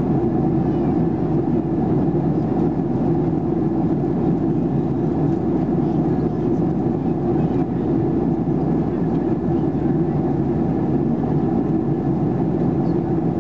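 Steady cabin noise inside a Boeing 737-800 in flight: the CFM56-7B jet engines and rushing airflow as an even, unbroken roar.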